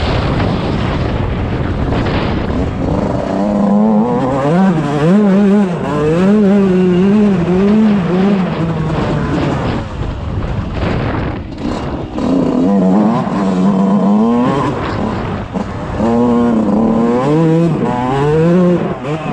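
Yamaha YZ125 two-stroke motocross engine under way, its pitch rising and falling again and again as the rider works the throttle and shifts, easing off briefly about halfway through.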